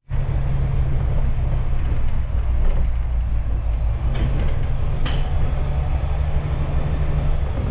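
Double-decker bus engine running with a steady low drone, with two short clicks or rattles about four and five seconds in.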